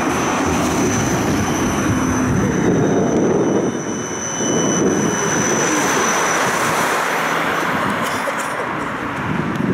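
Siemens Combino low-floor tram running at speed, heard from inside: a steady rumble of wheels on rails with a thin high whine that fades out about six seconds in.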